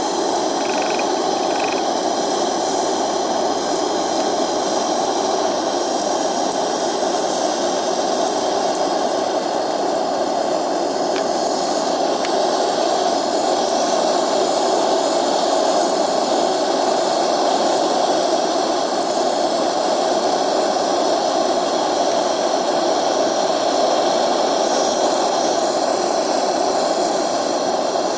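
Homemade MAPP-gas blast furnace running flat out, its burner flame making a steady, unbroken rush while it heats a crucible of gold toward melting.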